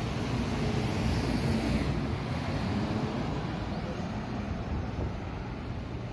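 Steady rumble of a Dubai Metro train running, heard from inside the carriage, swelling slightly in the first couple of seconds.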